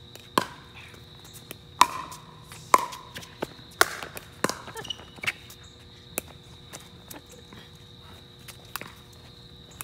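Pickleball rally: paddles striking the plastic ball, four sharp pocks about a second apart, then several lighter clicks before play stops.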